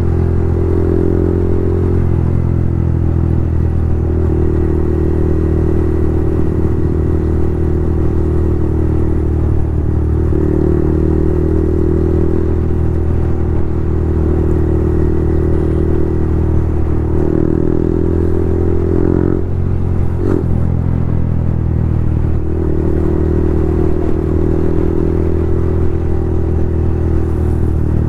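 Yamaha MT-15's single-cylinder engine running through a very loud aftermarket Akrapovic full-system exhaust while riding, its note rising and falling with throttle changes every few seconds, with a brief sharp crack about twenty seconds in.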